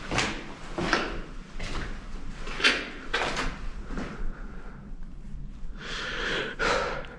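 Footsteps on a gritty floor, one short crunching step about every 0.7 s, with a longer scrape near the end.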